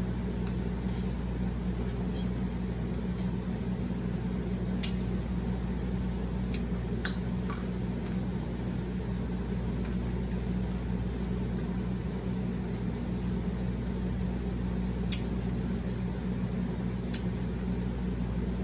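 Steady low hum of room or appliance noise, with faint, scattered clicks of chewing during an eating session.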